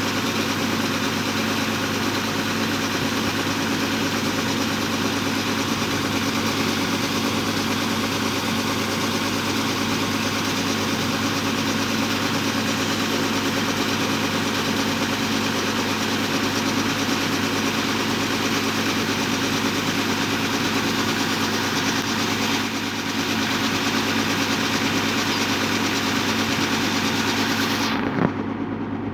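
Rice combine harvester's engine running steadily under load, a constant even drone.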